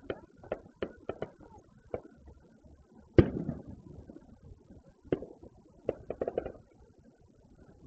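Distant fireworks going off: a string of sharp pops and bangs. The loudest comes about three seconds in, with a rumble trailing after it, and a quick run of crackles follows a little after six seconds.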